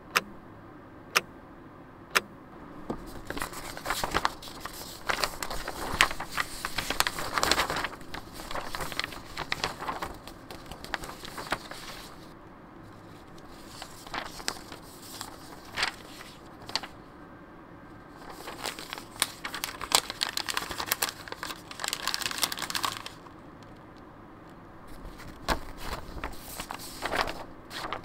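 Paper being handled, rustling and crinkling in long bursts with quieter gaps between. A few sharp clicks come in the first couple of seconds.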